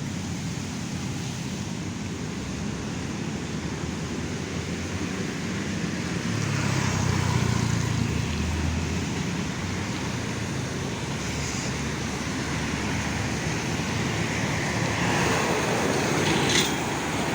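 Steady road and traffic noise with a hiss, the low rumble of a passing vehicle swelling about six seconds in and fading after nine.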